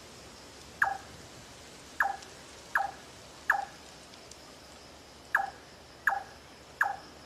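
A bird giving a short, quickly falling call, repeated seven times at uneven intervals of about one second.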